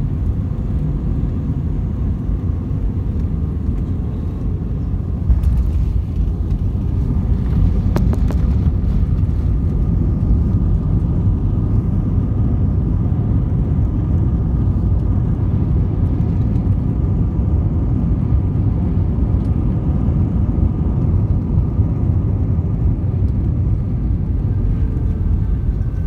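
Inside an airliner cabin as the jet rolls along the ground after landing: a steady low rumble of engines and wheels that steps up in loudness about five seconds in.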